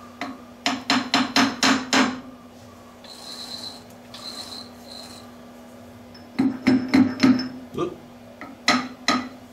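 Quick light taps of a copper rod against a fibre-reinforced phenolic disc clamped in a lathe chuck, knocking the part over so it runs true against a dial test indicator. The taps come in two runs of about six, each lasting about a second, with a few more near the end, over a faint steady hum.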